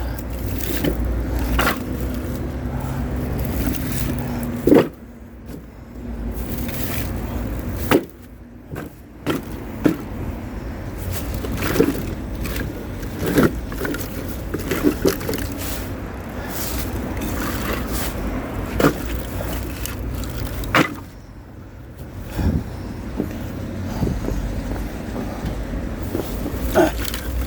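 A vehicle's engine running with a steady low rumble, broken by scattered sharp knocks and thuds.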